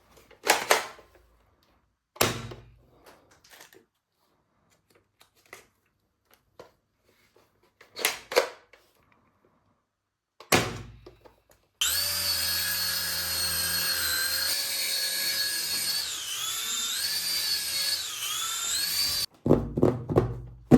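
A few short handling noises, then an electric toy runs with a steady whir for about seven seconds, its pitch dipping twice near the end before it cuts off.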